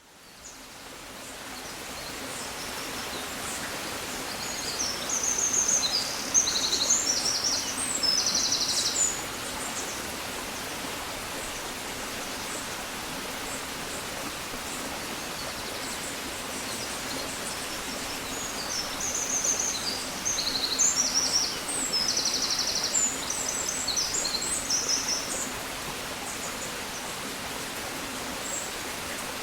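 A songbird sings two phrases of quick, high chirps, each ending in a rapid trill, the second phrase about midway through. Under it runs a steady outdoor hiss of rural background noise.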